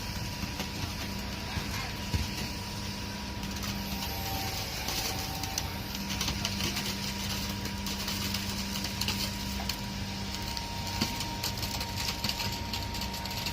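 Heavy construction machinery engine running steadily, a constant low hum with a few light clicks and knocks.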